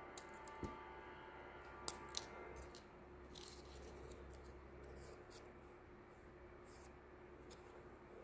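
Scissors cutting a strip of paper: faint snips, with two sharper clicks about two seconds in.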